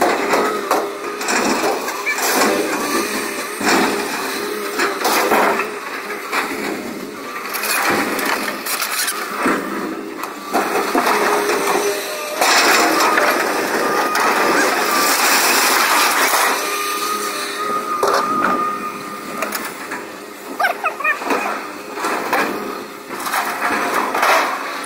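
Scrap metal clanging and crashing as it is thrown off a truck and worked by an excavator's grapple, over the running of the excavator's diesel engine. A thin steady whine rises over the noise through the middle stretch.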